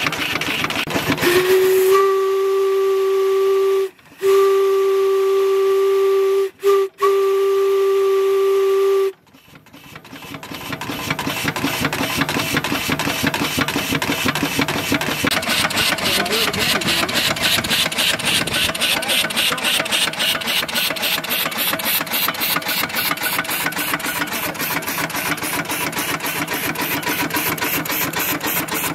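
Steam whistle blown in one long steady blast of about seven seconds, with three brief breaks in it. It then stops, and the 1890s Armitage Herschell portable steam engine runs on with a quick, even exhaust beat.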